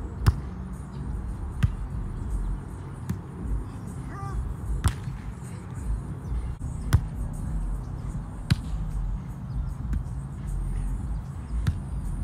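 Volleyball rally on grass: about seven sharp slaps of hands and forearms on the ball as it is passed, set and hit, one to two seconds apart, over a steady low rumble.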